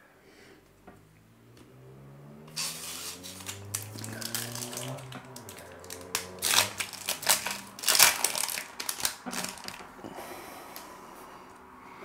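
2021 Topps Opening Day card pack wrapper being torn open and crinkled in the hands, a run of sharp crackles and clicks from the wrapper and the cards inside, loudest a little past the middle.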